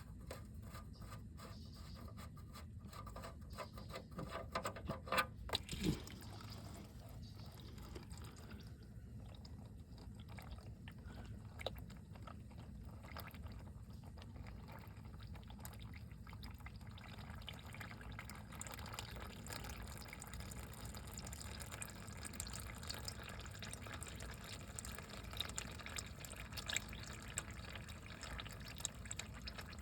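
Liquid pouring and dripping steadily into a container, which here is most likely engine oil thinned with gasoline draining from the 5.7 Vortec V8. A few sharp knocks and handling clatter come about five to six seconds in.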